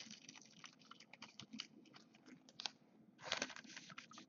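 Faint rustling and clicking of Topps Chrome football cards being handled and slid against one another, with a denser scrape a little after three seconds in.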